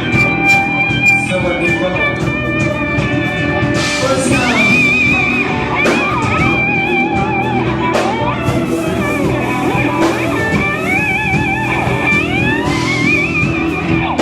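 Rock band music with a lead electric guitar playing wavering, bent notes over drums and bass.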